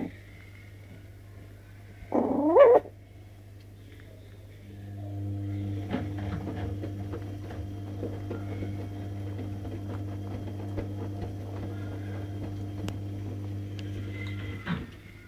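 A Tibetan Terrier puppy gives a short rising whining cry about two seconds in, the loudest sound, after a brief squeak right at the start. From about five seconds in, a steady low hum with scattered small clicks runs until shortly before the end.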